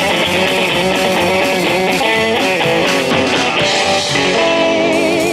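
Guitar-led rock music with drums, ending on a long held note with vibrato near the end.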